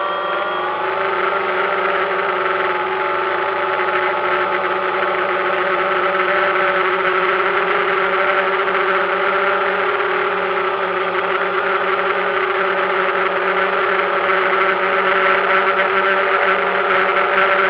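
Multirotor drone's electric motors and propellers whining loudly, close to the onboard camera. The pitch rises in the first second, then holds steady.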